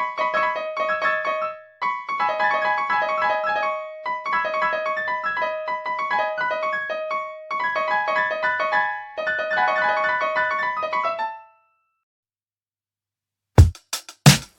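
Piano music: quick runs of notes in short repeated phrases of about two seconds each, stopping about eleven seconds in. After a short silence, hard drum hits start near the end.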